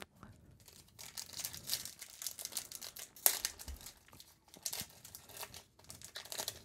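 Foil wrapper of a Magic: The Gathering Strixhaven booster pack crinkling and crackling irregularly as it is handled and torn open, sharpest a little over three seconds in.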